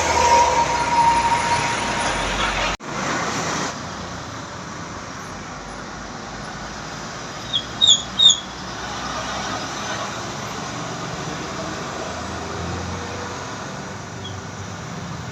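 Roadside traffic noise: a vehicle passes close and loud at first, then after a sudden break about three seconds in, steadier, quieter traffic. About eight seconds in come three short, high chirps.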